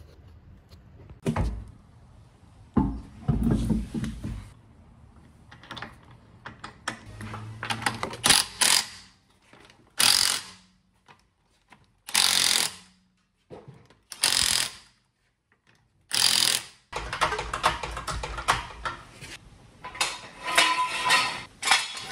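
Cordless impact wrench running a car wheel's lug bolts in, in short bursts about two seconds apart. Metal clunks come before it, and a run of rapid ratchet-like clicking follows near the end.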